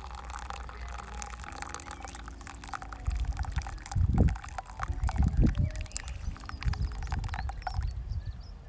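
Liquid pouring and trickling, a crackly run of many small splashes and clicks that stops shortly before the end, with a few heavier low thumps in the middle.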